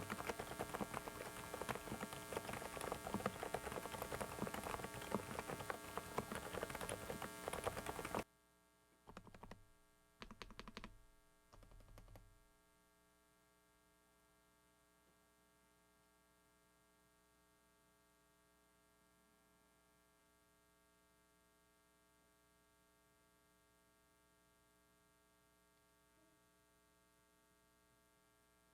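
Fast typing on a Dareu mechanical keyboard, a dense run of key clacks that stops abruptly about eight seconds in, followed by three short clusters of clatter. After that only a steady electrical hum remains, noise from a faulty microphone.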